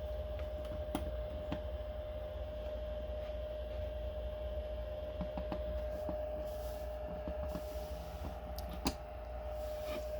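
Light clicks and taps of hands handling a power bank and a phone charging cable, with one sharper click about nine seconds in. A steady whine and low hum sit underneath.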